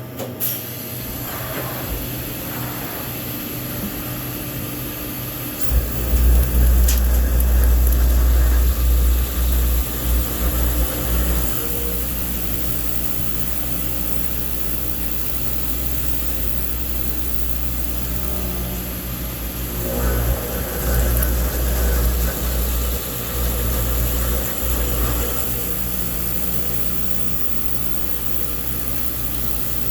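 Fadal vertical machining center running with a steady machine hum, with heavier low rumbling about six seconds in and again about twenty seconds in.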